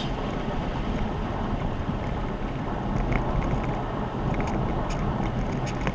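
Steady drone of a car on the move: engine hum under road and wind noise, with no revving or sudden change.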